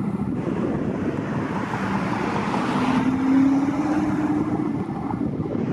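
Wind buffeting the microphone, with a steady motor hum that rises slightly in pitch and swells to its loudest about three seconds in.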